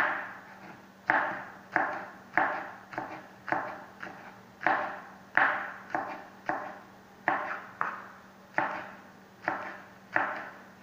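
Kitchen knife chopping vegetables on a white plastic cutting board: a run of sharp knocks, each stroke fading quickly, at an uneven one to two strokes a second.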